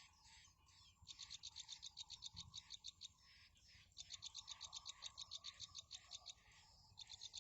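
Faint trains of rapid high chirps, about ten a second, each train lasting a couple of seconds with short breaks between, over a faint steady hum.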